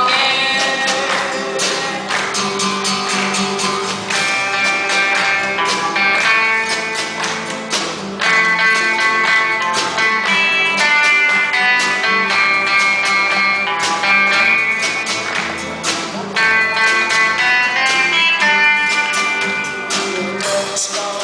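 Guitar music: a plucked string instrument playing a quick run of picked notes and chords.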